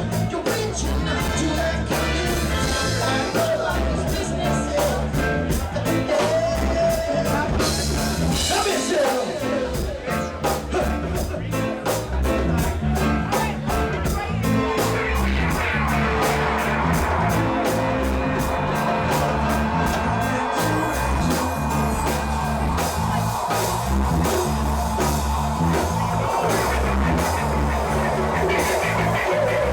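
Live reggae band playing, a strong bass line under an evenly repeating beat; the bass drops out briefly about nine seconds in.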